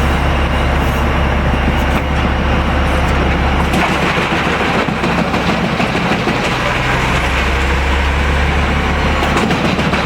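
Pezzolato PTH 1300/1500 drum wood chipper driven by a 1200 hp Caterpillar engine, running loudly and chipping hard wood: a deep steady engine hum under dense grinding noise. The low hum eases off briefly about four seconds in, then comes back.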